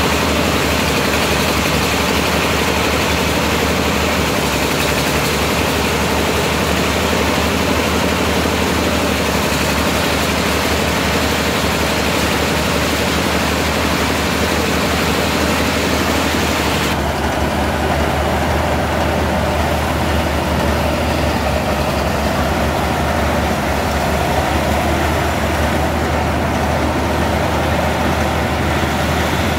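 Engine-driven rice thresher running steadily, its engine and spinning threshing drum working as rice stalks are fed in. The sound turns duller a little over halfway through.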